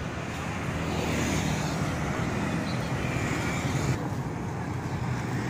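Street traffic on a city road: a steady hum of car and motorbike engines and tyres, growing louder about a second in and dropping back suddenly about four seconds in.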